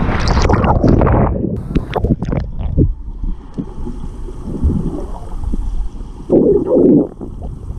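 Wind rumbling on the microphone, with a loud rushing noise in the first second or so and a brief louder burst near the end.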